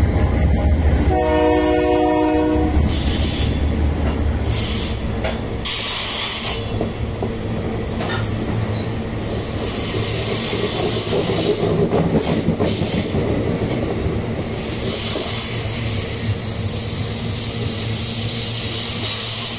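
A locomotive horn sounds one blast of about a second and a half, about a second in, over the steady rumble of a passing freight train of loaded ore wagons. The wagon wheels click over rail joints and squeal on the rails, the high squeal and hiss growing stronger in the second half.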